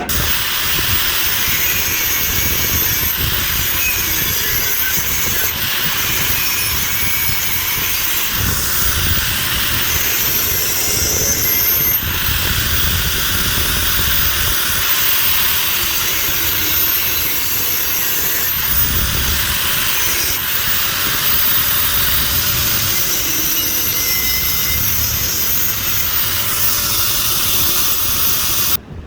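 Stick-welding arc crackling and hissing steadily as a bead is laid, with a few abrupt breaks along the way.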